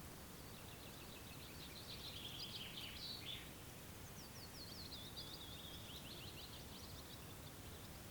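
A songbird singing two phrases of quick, high notes, the second starting about four seconds in, faint over a steady low outdoor rumble.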